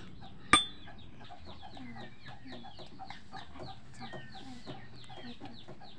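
Chickens clucking and chirping in the background, many short falling calls overlapping. A single sharp clink with a brief ring sounds about half a second in.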